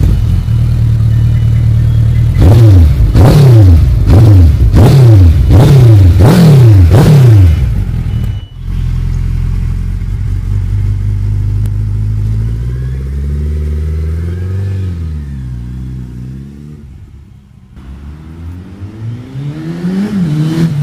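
Suzuki Hayabusa GSX1300R inline-four engine with a Scorpion aftermarket exhaust, idling, then revved in about six quick throttle blips, each rising and falling. After a cut, the engine runs more quietly with its pitch swelling up and down, fades away, and rises again near the end.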